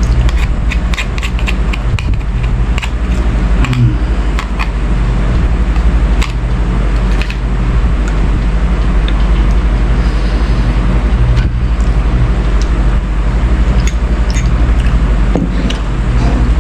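Steady low motor hum, with scattered sharp clicks and cracks as boiled shellfish shells are pried open and eaten.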